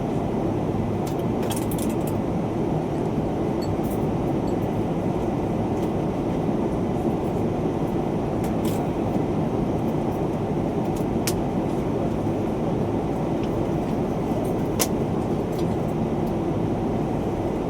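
Steady low rumble from inside a moving vehicle, even throughout, with a few faint clicks.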